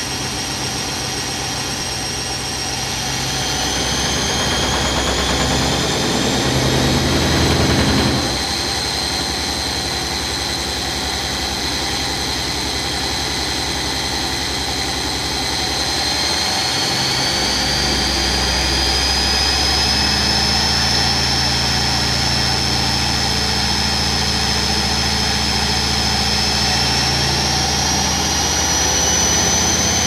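Zanussi front-loading washing machine running with a steady low hum and a high motor whine that rises in pitch three times as the drum speeds up.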